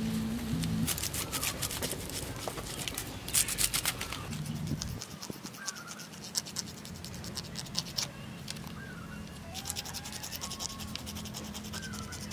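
A knife scraping the scales off a snake's skin: rapid rasping strokes in bursts of a second or two, with short pauses between.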